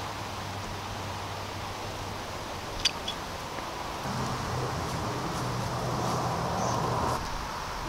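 Outdoor ambience: a steady hiss under a low hum that grows louder about four seconds in and stops about seven seconds in, with a single sharp click about three seconds in.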